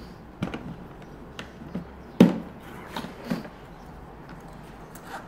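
A plastic fishing seat box being handled: a scattered series of knocks and taps, the loudest a little over two seconds in.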